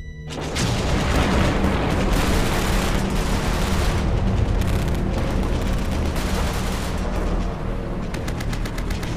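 Battle sound effect of dense automatic gunfire, starting abruptly just after the start and running on loudly, with a fast rattle of machine-gun shots near the end.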